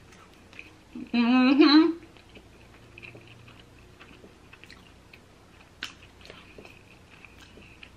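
A person chewing a soft McDonald's Filet-O-Fish sandwich with tartar sauce close to the microphone, with faint wet mouth clicks. About a second in comes a loud hummed 'mm', about a second long and rising in pitch.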